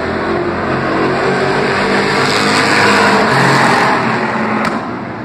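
Street stock race cars' engines running at speed on a paved oval, swelling to their loudest as cars pass close a few seconds in, then easing off. A brief sharp click near the end.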